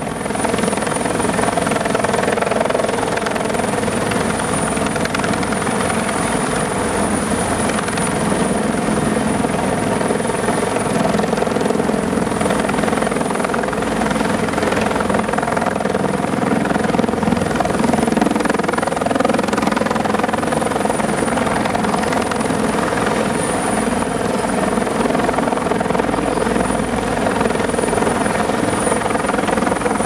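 Red Salamander articulated tracked all-terrain fire vehicle driving, its engine running with a loud, steady drone and the tracks rattling.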